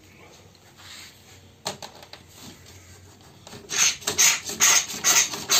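Steel pins of a wooden marking gauge scraped back and forth across a thin sheet, scoring it, in quick repeated strokes of about two to three a second in the second half. A single sharp click comes about one and a half seconds in.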